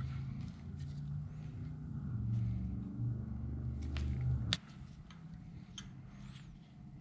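Light metallic clicks of main bearing shells being pressed into the main saddles of a 289 Ford engine block, over a low steady machine hum that cuts off suddenly about four and a half seconds in.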